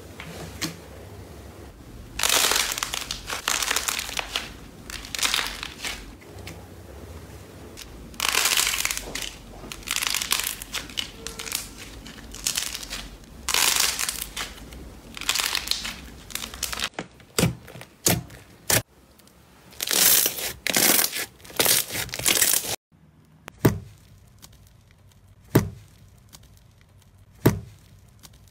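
Hands squeezing and kneading slime and slime-coated squishy toys, making crackling, crinkling sounds in bursts of a few seconds. Near the end, three sharp snaps about two seconds apart.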